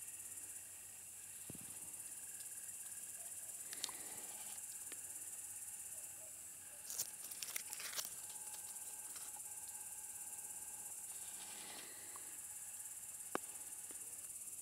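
Crickets chirring in a steady, high continuous drone, with a few brief clicks and rustles from handling around the middle.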